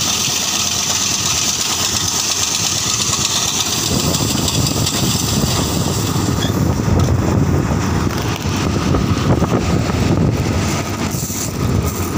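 Preet combine harvester running while unloading, its spout pouring shelled maize into a trailer: a steady machine noise with a high hiss through the first half. From about four seconds in a heavier low rumble takes over.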